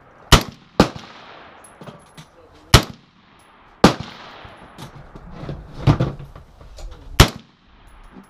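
Rifle shots: five sharp reports at irregular intervals, the first two close together, each followed by a short echoing tail, with a weaker shot between the last two.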